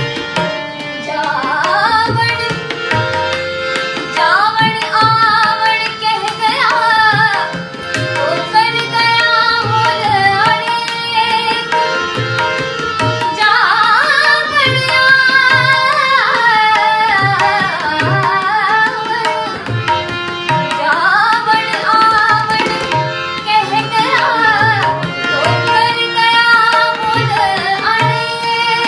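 A woman singing an Indian song in a melismatic style, with ornamented gliding lines. She is accompanied by a harmonium holding a steady drone and by a tabla keeping a regular beat.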